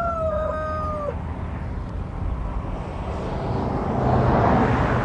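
A rooster crowing, ending on a long, slightly falling final note about a second in. A broad rush of noise follows, swelling toward the end.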